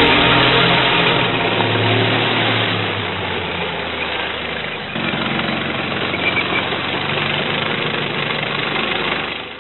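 Simulated tank engine idling from a radio-controlled T-72 model's sound unit, a steady rumble that fades out near the end.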